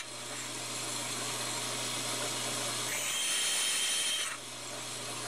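Bandsaw running, its narrow blade cutting through a brass letter blank: a steady motor hum under the hiss of the cut, with a higher whine from about three seconds in that drops away as the level dips briefly just after four seconds.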